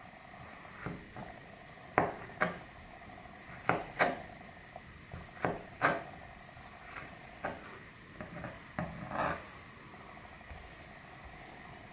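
Maxace Amber 2S folding knife's blade slicing through grapes and tapping down on a cutting board: about a dozen sharp taps, several in close pairs about half a second apart.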